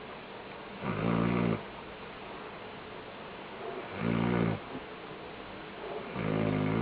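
A sleeping pet snoring: three loud snores, each under a second long, coming about every two and a half to three seconds.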